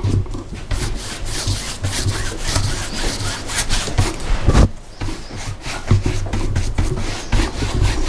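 A broad bristle brush scrubbing acrylic paint in quick back-and-forth strokes, first working paint on the palette, then rubbing it onto a canvas-covered board, with a brief pause about halfway through.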